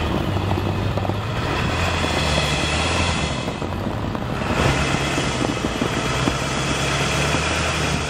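SUV engine running steadily with a low hum as it tows a dog-box trailer, with tyre and road noise over snow.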